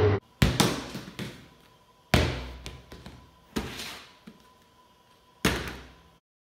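Plastic wipes canisters being flipped and landing on a ping-pong table and on each other: four sharp knocks, each about a second and a half apart, each dying away quickly.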